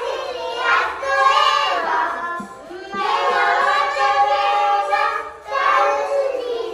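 Young children singing a song in several sung phrases, with short breaks between them.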